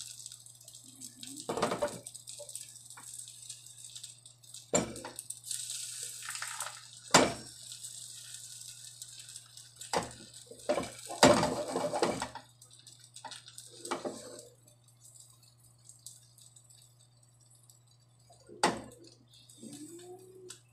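A spatula scraping and knocking against a frying pan, at irregular moments, as eggs are stirred and folded into an omelette. A faint steady low hum runs beneath.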